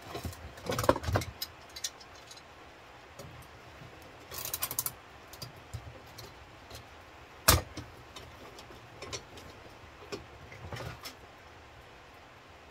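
Metal hand tools and small scrap parts clinking and clattering on a workbench as a microwave is stripped down. One sharp click about seven and a half seconds in is the loudest sound.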